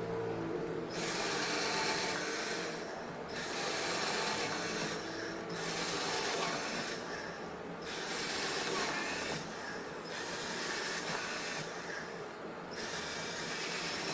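Cordless drill boring into a wooden board, one hole after another along a line: about six stretches of drilling, each a second or two long, with short breaks between as the bit moves to the next hole.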